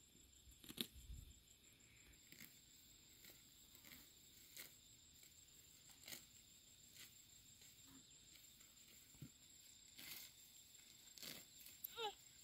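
Near silence with faint, irregular sharp clicks and ticks, and a short high squeal near the end.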